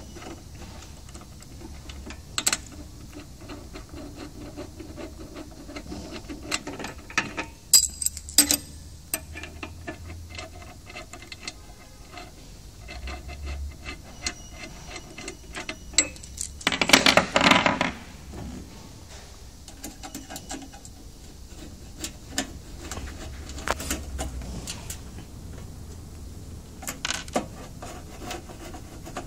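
Hex key working the steel bolts on a heat press's spring-loaded platen mount: scattered small metal clicks and scrapes, with a louder stretch of rattling about seventeen seconds in.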